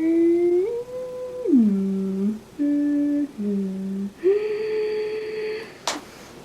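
A girl humming a wandering tune, holding notes and sliding up and down between them, with a short sharp click near the end.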